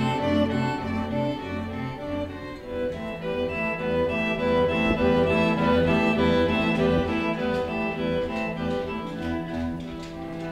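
Background music: bowed strings, violin and cello, playing slow held notes.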